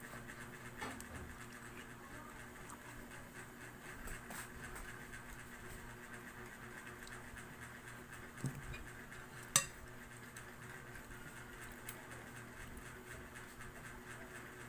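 Quiet sounds of a ripe mango being torn and eaten by hand, faint clicks and handling noises over a steady background hum. About eight and a half seconds in there is a soft knock, then a second later a single sharp clink of tableware, the loudest sound.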